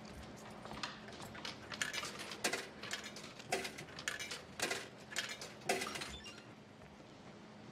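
A run of sharp, irregular clinks and clacks of hard objects striking, a few each second, over a steady low hum, then dying away near the end.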